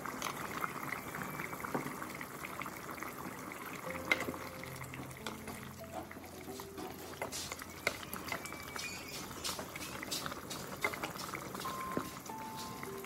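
Sour duck soup boiling and bubbling in an aluminium pot as it is stirred with a wooden spatula, with scattered sharp clicks and light scrapes of the spatula against the pot.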